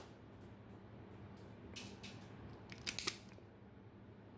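Spring-powered Tokyo Marui M1851 Navy airsoft revolver being worked: faint small clicks, then a sharp double click about three seconds in as the spring fires a BB into a chronograph.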